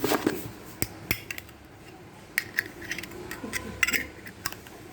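Zippo lighter being handled: its hinged metal lid flicked open and snapped shut, giving several sharp metallic clicks and clinks at uneven intervals.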